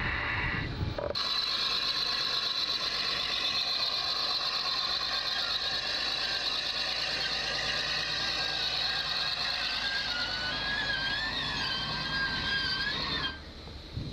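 Deck cable winch running, its cable going through the sheave block of the A-frame over the side: a dense mechanical clatter that starts abruptly about a second in, with a wavering squeal over it in the last few seconds, and cuts off abruptly near the end.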